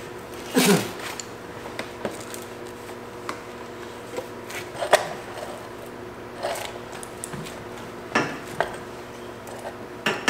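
A handful of short clicks and knocks as welding gear is handled: a welding helmet flipped down and a MIG torch being positioned. The welding itself has not yet started, and a steady hum runs underneath.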